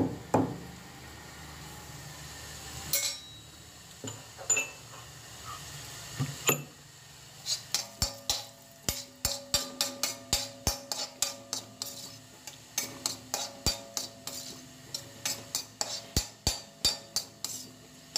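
Steel spoon stirring roasted rice flour and country sugar in a stainless steel bowl. It clinks against the bowl a few separate times, then from about seven seconds in it knocks and scrapes about three times a second, with the bowl ringing faintly.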